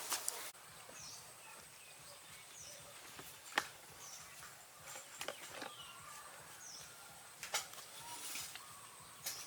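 Faint, short, high-pitched animal chirps that fall in pitch, repeating about every second or so, with two sharp clicks in between.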